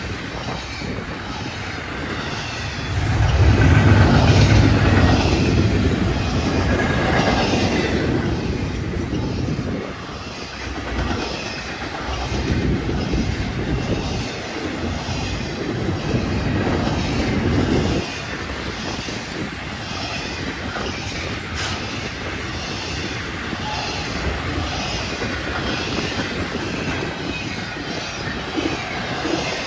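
Double-stack container train's well cars rolling past on the rails: a steady rumble of steel wheels with a regular rhythmic clicking. It is loudest a few seconds in and eases somewhat in the second half.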